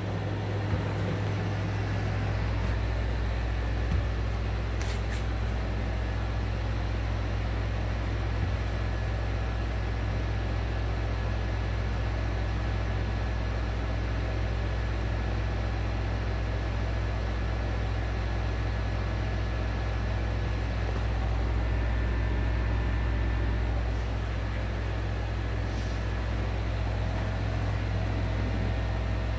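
A steady low mechanical hum, constant throughout, with a few faint clicks.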